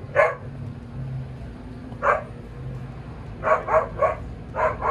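A dog barking: single sharp barks about a second in and again near the middle, then quicker runs of two and three barks toward the end.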